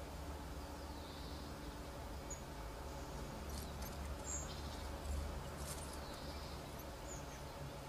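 Quiet outdoor ambience: a steady low rumble with a few faint, short high chirps and ticks scattered through.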